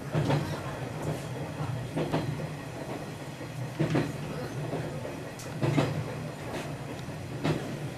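A passenger train running along the track, heard from on board. A steady low drone runs throughout, with the clack of the wheels over rail joints recurring about every two seconds.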